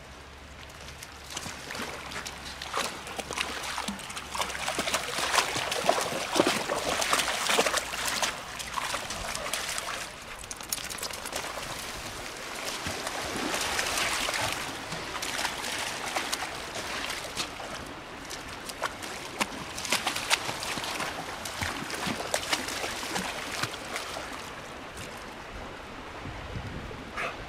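A dog wading through shallow river water over stones, its paws splashing unevenly, loudest from about five to nine seconds in and again around fourteen seconds.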